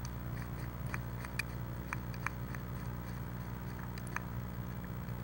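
Faint scattered clicks and rustles from a western screech owl moving in its nest box as it feeds on a mouse, over a steady low hum.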